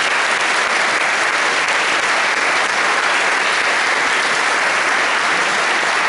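A large audience of students applauding, many hands clapping in a steady, even wash of sound.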